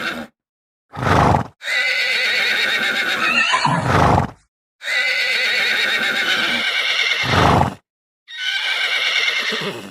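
Horse whinnying in four separate calls with brief silences between them, the longer calls wavering in pitch.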